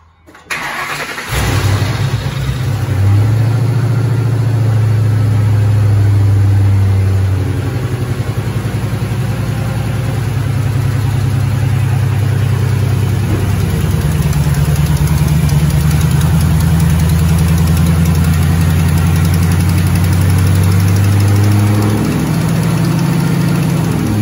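Ford 4.6-litre three-valve V8 of a 2008 Mustang GT cranking for about a second and catching, then running at a fast idle whose speed shifts a few times. This is the first start after new camshafts, lifters and rocker arms were fitted to cure a lifter and rocker-arm tick.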